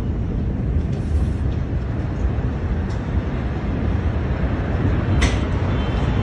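Steady low rumble, heavy in the bass, in the aftermath of a large explosion, with a few short sharp clicks, the clearest about five seconds in.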